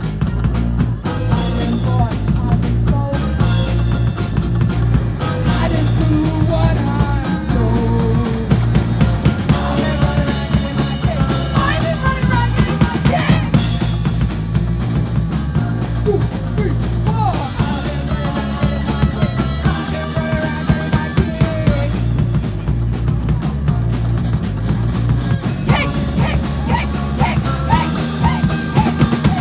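Live rock band playing loud: electric guitars, bass guitar and a drum kit keeping a steady beat, with a singer's voice over the top.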